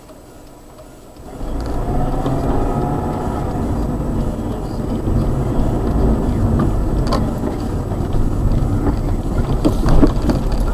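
Car driving: steady engine and road noise that starts abruptly about a second and a half in, with a few sharp clicks near the end.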